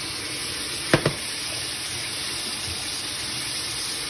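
Chicken marinade sauce poured into a hot pan of roasting carrot and onion, hissing in a steady sizzle as the liquid hits the hot metal and deglazes the pan. Two sharp knocks about a second in.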